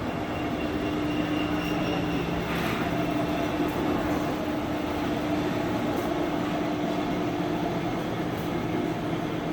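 An all-geared lathe running steadily, its headstock gearbox giving a constant hum with a steady tone and a few faint ticks.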